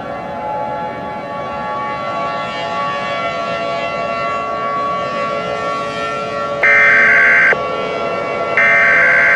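A steady drone of several held tones, then, about six and a half seconds in, the Emergency Alert System's SAME header data bursts begin: two loud, buzzing one-second digital bursts about a second apart, each starting and stopping with a click.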